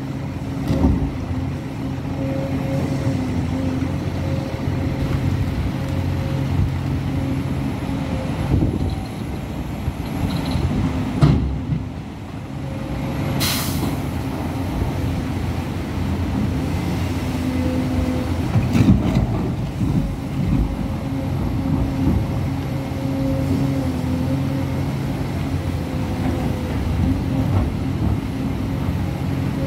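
Hidromek HMK 500LC excavator's diesel engine running under hydraulic load through a dig-and-swing cycle, with a thin steady whine over the engine note. A few sharp knocks and scrapes come from the bucket in rock, the loudest about 11 and 19 seconds in, and a short hiss comes about 13 seconds in.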